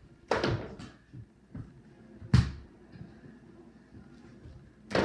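Knocks and thumps of indoor mini-basketball play: a small ball hitting a plastic backboard and rim, bouncing on a hard floor, and feet landing from jumps. There is a cluster of knocks in the first second, the loudest thump a little before halfway, and another knock near the end.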